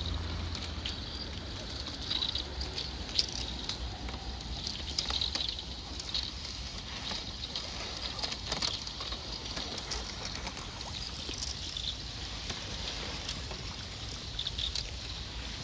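Thin lake-surface ice cracking and breaking up along the shore: an irregular scatter of many small, sharp clicks and crackles, a sound of the lake in deep winter.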